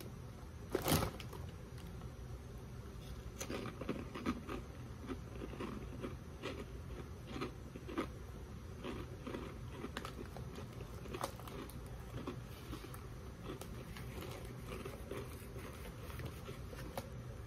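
A Funyuns Steakhouse Onion ring bitten with one loud crunch about a second in, then chewed with a long, irregular run of small crisp crunches.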